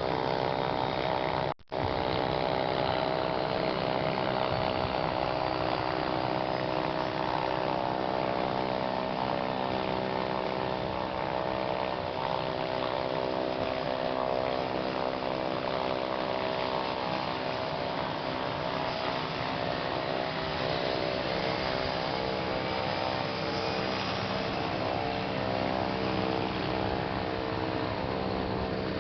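Cessna light aircraft's piston engine and propeller running steadily, a constant droning hum. The sound cuts out for a split second about a second and a half in.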